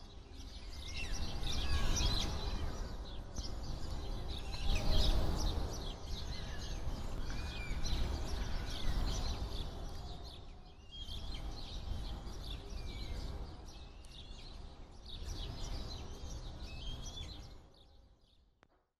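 Small birds chirping and twittering again and again over a low rumble that swells and fades; it all fades out near the end.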